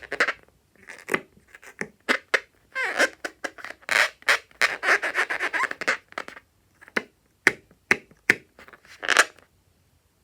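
Rubber balloon squeaking and scratching as it is handled: dense stretches of rubbing, then a few short, sharp strokes near the end.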